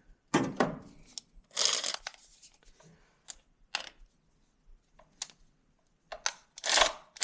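Hand tools at work on spark plugs: scattered metallic clicks and knocks, with two short rasping bursts like a socket ratchet being cranked, one about one and a half seconds in and one near the end.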